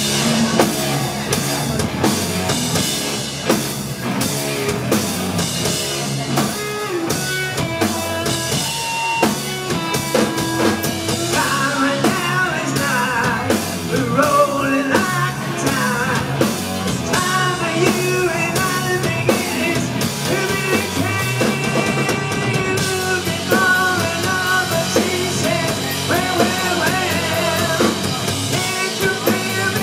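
A live rock band playing a song on drum kit, electric guitar and bass, with a man singing over it.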